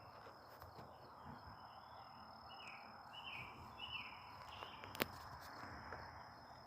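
Faint outdoor ambience: a steady high-pitched insect drone, with a bird's short chirps repeated three or four times in the middle and a single sharp click about five seconds in.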